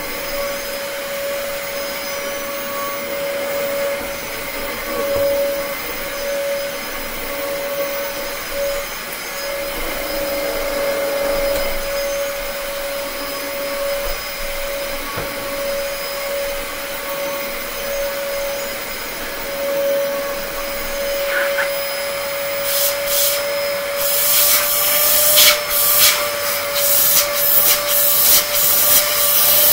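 Dyson DC33 Multifloor upright vacuum cleaner running with a steady motor whine as it is pushed back and forth over a carpet mat. Near the end comes a series of loud, uneven bursts of rushing noise.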